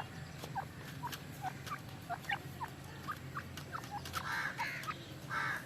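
Black francolins calling: a run of short, sweeping chirps, two or three a second, with two louder, longer buzzy calls in the second half.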